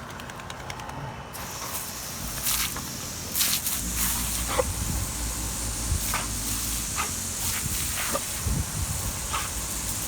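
Garden hose spraying water: a steady hiss that starts suddenly about a second in, with dogs playing in the spray and a scattering of short sharp sounds.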